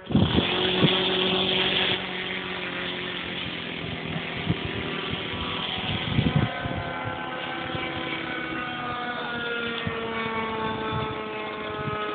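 RC model plane in flight, its motor a steady whine. A loud rushing noise fills the first two seconds, and over the second half the motor's pitch slowly falls.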